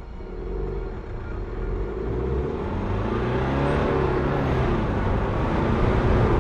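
Car engine pulling away, rising in pitch and getting steadily louder as it accelerates.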